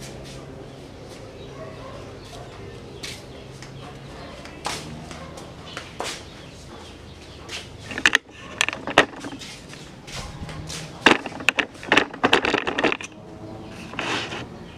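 Irregular sharp metal clanks and knocks from work at a hydraulic press used to separate a motorcycle crankshaft. They are scattered at first and bunch into a loud cluster in the second half, over a faint steady hum.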